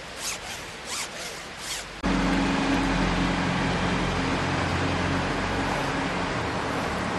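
Metal zipper on a hoodie being zipped in several quick strokes, then a sudden switch to a louder, steady low engine drone of a bus in the street.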